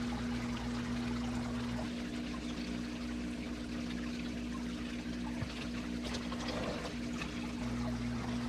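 Aquarium water running down a siphon hose and pouring into a large plastic trash can: a steady trickling splash, over a steady hum.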